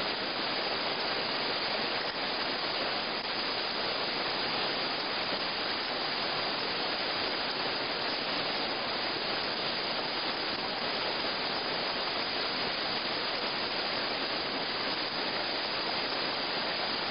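Whitewater rapids rushing steadily, the river pouring through a run of drops and holes.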